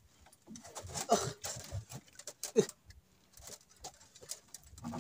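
A man's short low grunts amid faint knocks and rustles while he fights a hooked fish and hauls it in by hand line.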